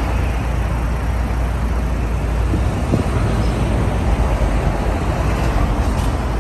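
Mitsubishi Lancer Evolution VI Tommi Makinen Edition's turbocharged four-cylinder engine idling with a steady low rumble through its sports muffler.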